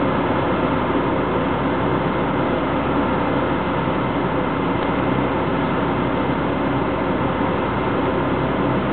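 Steady, unchanging drone of engines running at a port, with a faint steady tone over it.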